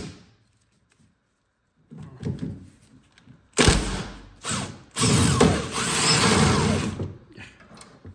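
Impact wrench undoing a 17 mm suspension bolt, with two short bursts and then a run of about two seconds. A few light clunks of tool handling come before it. The bolt comes loose easily.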